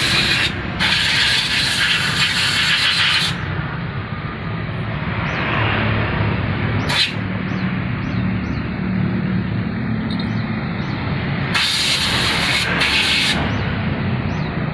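Compressed-air blowgun hissing in several blasts as a motorcycle radiator is blown clean: a long blast in the first few seconds, a brief one near the middle and another near the end, over a steady low hum.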